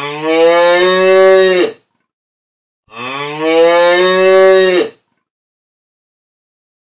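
Cow mooing twice, each moo about two seconds long, rising in pitch at the start and dropping off at the end.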